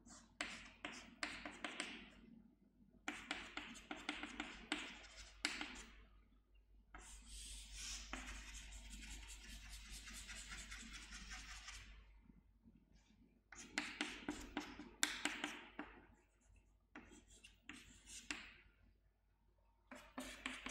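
Chalk scratching and tapping on a chalkboard while a diagram is drawn: clusters of short strokes, with one longer continuous scratch in the middle.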